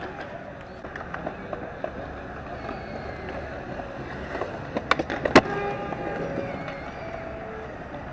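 Skateboard wheels rolling on concrete, with a few sharp clacks of the board close together about five seconds in.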